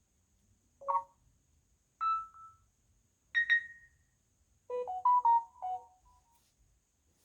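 Samsung Galaxy A71 ringtone sounds playing from the phone's speaker: single short electronic tones about one, two and three and a half seconds in, each followed by silence, then a quick run of several melodic notes.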